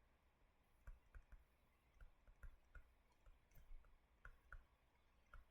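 Near silence with faint, irregular clicks, about two to three a second.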